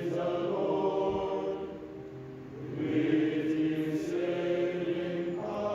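End-credit music of choral chant: voices holding long, slow notes in phrases, dropping quieter about two seconds in and swelling again a second later.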